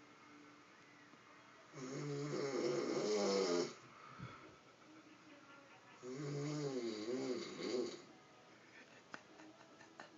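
A man snoring heavily in his sleep: two loud snores of about two seconds each, one a couple of seconds in and one about six seconds in, each with a wavering pitch, and quiet stretches between them.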